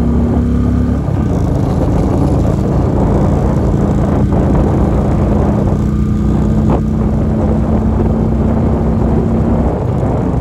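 Motorcycle engine running at a steady cruise, with wind and road noise rushing over the microphone. The engine note shifts slightly about a second in.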